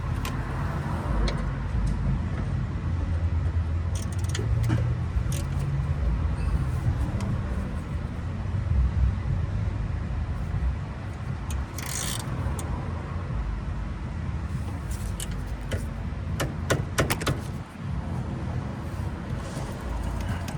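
Scattered metallic clicks and knocks of hand tools working a brake caliper loose, with a cluster of clicks about three quarters of the way through, over a steady low rumble.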